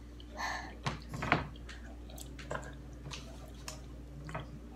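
Quiet eating sounds at a table: lip smacks as fingers are licked, then a scattering of short clicks and taps, the sharpest about a second and a half in, over a steady low room hum.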